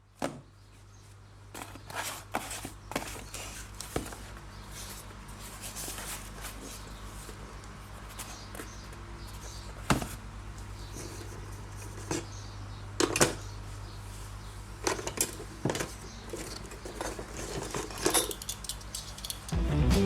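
Hands opening a watch box and handling its packaging: scattered clicks, taps and short rustles of cardboard and plastic, over a steady low hum.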